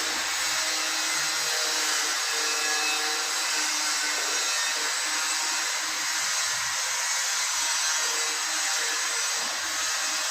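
A power tool running steadily with a high, even whirring hiss.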